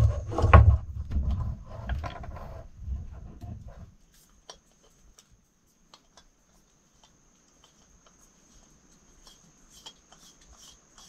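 Handling noise of a small gas canister on a wooden table: low knocks and rubbing for the first few seconds. After that come scattered light metallic clicks as a small folding canister stove's pot supports are opened.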